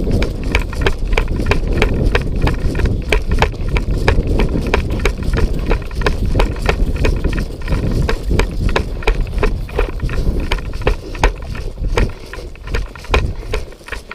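Footsteps, a few steps a second, over a steady low rumble from the microphone being carried, easing off near the end.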